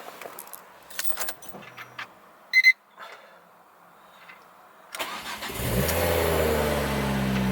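A short electronic beep about two and a half seconds in, then the Ford Focus ST225's turbocharged five-cylinder engine cranks and starts about five seconds in, settling into a steady idle.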